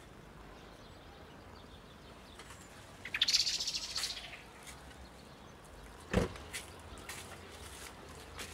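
A bird's rapid, rattling chatter lasting about a second, about three seconds in, followed a few seconds later by a single dull knock.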